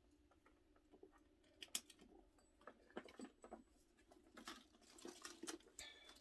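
Faint scattered clicks and light rustling as a leather handbag and its metal strap hardware are handled, with a brief small squeak near the end.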